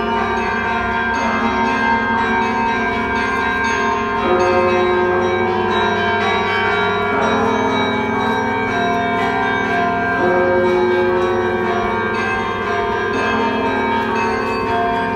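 The bells of St. Michael's Golden-Domed Cathedral ringing a peal. Many church bells sound together in a continuous, overlapping ring, with new strikes coming in every second or so over the ringing of the last.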